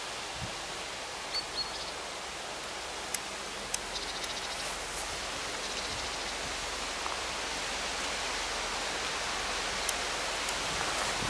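Wind rustling through trackside trees, a steady hiss that grows slowly louder, with a few faint clicks and high chirps in the first half.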